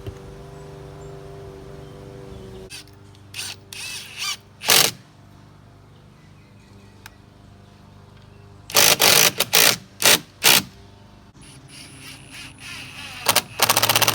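Power drill driving screws into wood in short bursts, in three groups, sinking the lag screws that hold plastic grab handles.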